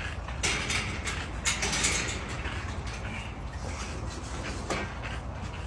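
Rattling and clattering at a wire-panel dog kennel during feeding: a dense metallic rattle begins about half a second in and lasts under two seconds, followed by scattered knocks over a steady low rumble.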